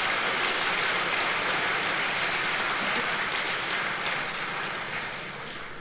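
Audience applause, steady at first and dying away near the end.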